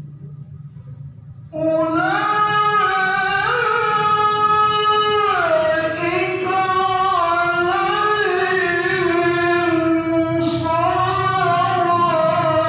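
A man reciting the Qur'an in melodic tilawah style, a high voice holding long ornamented notes. He comes in about a second and a half in, after a pause filled only by a steady low hum.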